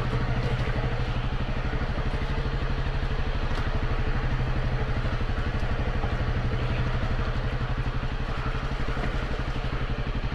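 Dual-sport motorcycle engine running steadily, an even rapid pulse with no revving.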